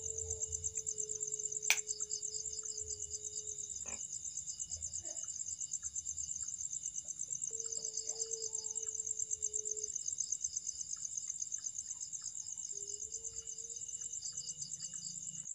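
Crickets chirping in a fast, steady, high pulse. Three times over it comes a long, plain, drawn-out moan of unknown source, the strange moaning heard from the corner of the goat pen; the last one rises slightly. A sharp click about two seconds in.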